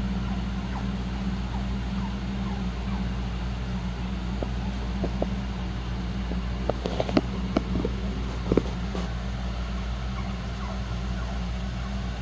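Shih-poo puppies whimpering and squeaking with short, faint high whines over a steady low hum, with a few sharp clicks around the middle.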